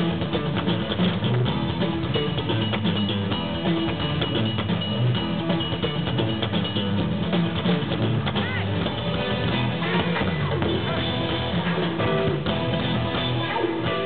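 Live rock band playing an instrumental stretch of a song: guitars over a drum kit, amplified on stage, with no singing.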